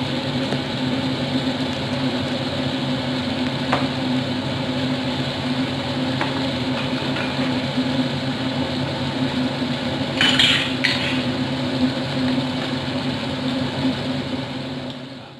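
Tuna frying in a pan with a steady hiss over a low hum, and a wooden spoon stirring and scraping in the pan, with a brief louder scrape about ten seconds in.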